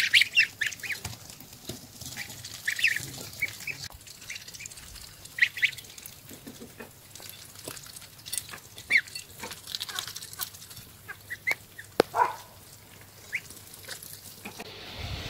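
A brood of domestic goslings peeping: many short, high calls scattered throughout, busiest in the first second, with a single sharp click about twelve seconds in. Near the end it gives way to a steady outdoor hiss.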